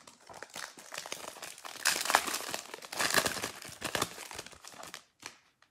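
Foil wrapper of a 2020 Panini Select football card pack crinkling and tearing as it is ripped open by hand. The crackling stops about five seconds in.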